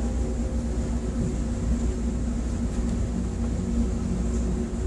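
Marine engines and shipboard machinery running steadily at close range: a low, even rumble with a constant hum.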